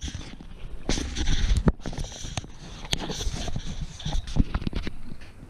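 Irregular knocks, clicks and rustling from the camera being handled and turned close to the microphone, with the angler shifting about in a boat while fighting a hooked fish.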